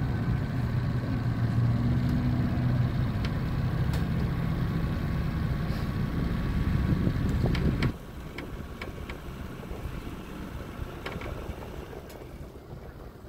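Boat motor running steadily under throttle as the boat manoeuvres, then throttled back abruptly about eight seconds in. A few sharp clicks follow, over a quieter background.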